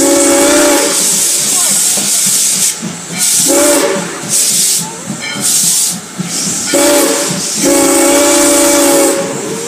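Chehalis-Centralia steam locomotive No. 15 sounding its steam whistle in four blasts, the last held longest, close by from the train. Steam hisses throughout, with rhythmic exhaust chuffs between the blasts.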